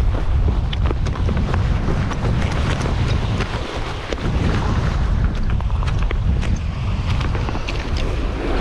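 Strong wind buffeting the microphone with a steady low rumble, over waves washing onto a rocky shore. Footsteps crunch and clatter on loose flat shale stones, heard as many short sharp clicks.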